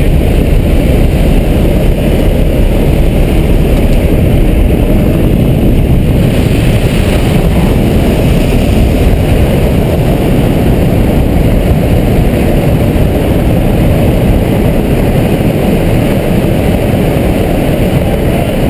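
Steady, loud rush of wind and propeller-engine noise inside a small jump plane flying with its door open, with wind buffeting the microphone.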